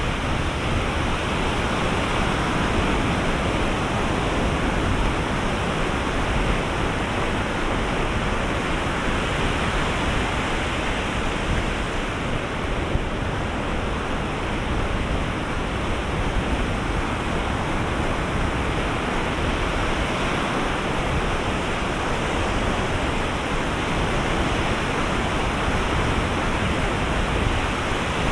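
Ocean surf breaking on a beach, heard as a steady, even wash of noise with no single crash standing out.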